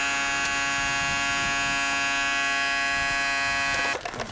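Electric fuel pump running with a steady buzzing hum as it fills an RC helicopter's fuel tank; it cuts off abruptly near the end.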